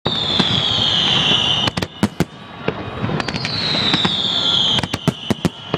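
Fireworks going off close by: twice, a high whistle falls in pitch for about a second and a half, and each whistle is followed by a quick run of sharp cracking bangs.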